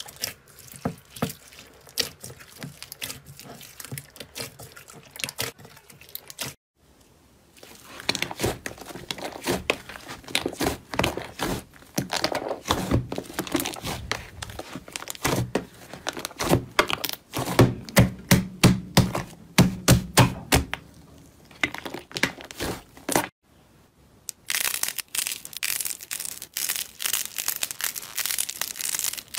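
Slime being squeezed, poked and pressed by hand, giving dense crackling and popping. The crackling stops briefly twice, and the clicks change character after each break.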